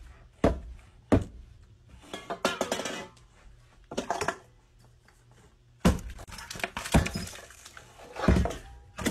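Metal base of a swing-arm desk lamp knocking down on a wooden table again and again as it is made to hop, a series of sharp thunks about a second apart, some with a short clinking ring.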